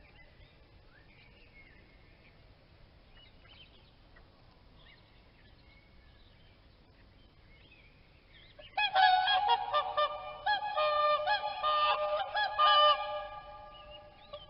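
Swans honking: faint scattered calls at first, then about nine seconds in a loud bout of many short, nasal honks close together that fades away near the end.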